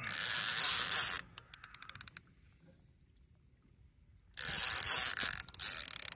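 Fishing reel's drag screaming as a hooked sturgeon takes line. It runs in three bursts: the first breaks up about a second in into a string of separate clicks that slow and stop, then two more near the end.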